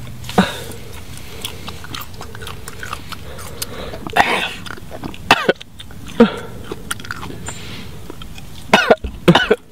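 A man gagging and coughing on a mouthful of raw roadkill squirrel: short retching coughs every second or two, with several in quick succession near the end.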